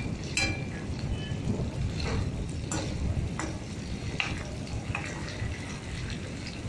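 Paneer cubes frying in hot oil in a metal kadhai, a steady sizzle, with a steel spoon clinking against the pan about six times as it turns them.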